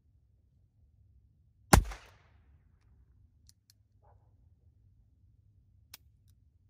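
A single shot from a Harrington & Richardson Trapper Model .22 revolver firing a .22 CB short, about two seconds in, with a short echo. A sharp click follows near the end.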